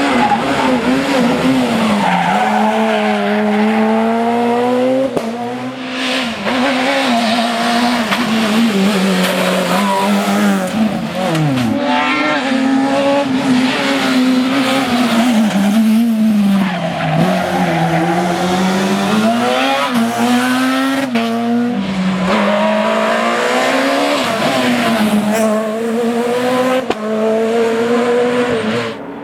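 Super 2000 rally cars' naturally aspirated two-litre four-cylinder engines revving hard on stage, pitch climbing through each gear and dropping at the shifts, one car after another.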